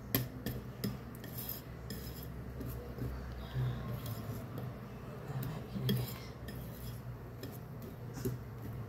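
Metal wire whisk stirring thick banana cake batter in a ceramic bowl, its wires clicking and scraping against the side of the bowl in irregular strokes.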